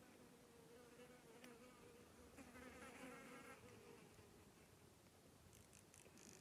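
Faint, steady buzzing of a flying insect, with a slightly wavering pitch, over near-silent open air.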